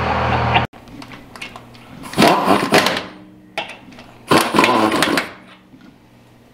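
Pneumatic impact wrench rattling on a truck wheel's lug nuts in two bursts of just under a second each, about two seconds apart.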